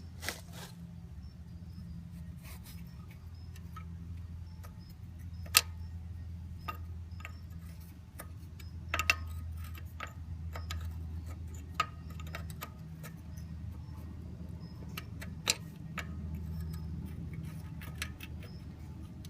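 Hand tools clicking and clinking irregularly on metal, with a few louder sharp knocks, over a steady low hum.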